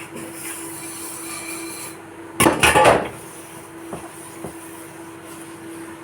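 Dishes being washed: plates clatter loudly for about half a second about two and a half seconds in, followed by two light clinks, over a steady hum.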